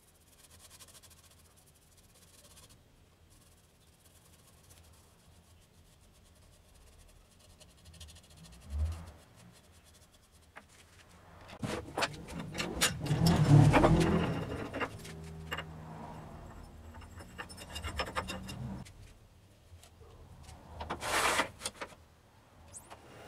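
A long quiet stretch, then a few seconds of metal clicking and scraping as a key tightens the jaws of a wood lathe's four-jaw chuck. A steady low hum follows, and there is one more short rattle near the end.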